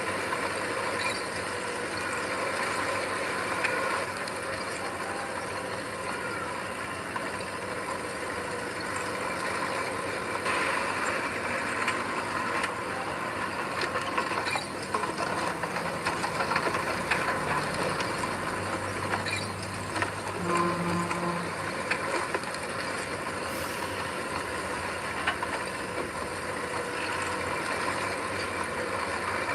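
Heavy earthmoving machinery at work: a diesel engine running steadily, with scattered metallic clanks and rattles.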